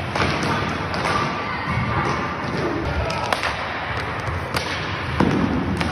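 Inline hockey play in a reverberant indoor rink: several sharp cracks of sticks striking the puck over a steady background of hall noise, with a heavier thump near the end.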